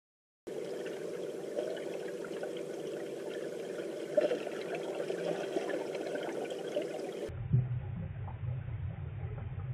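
Underwater sound of a swimming pool as picked up by the camera's microphone: a steady watery rush that starts about half a second in, changing abruptly to a lower, muffled rumble about seven seconds in.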